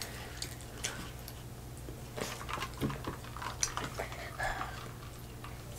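Soft, scattered clicks and small crunches of people eating at a table: hard taco shells chewed and broken by hand, and a plastic cup picked up.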